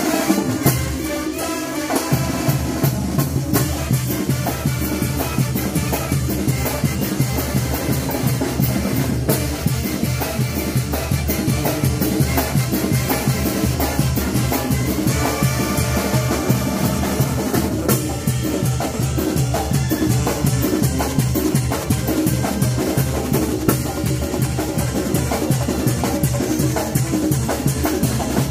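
Live Mexican banda de viento music: tubas, trumpets and clarinets over a driving percussion section of snare, bass drum with cymbal and congas. The bass and full band come in about two seconds in, then play steadily.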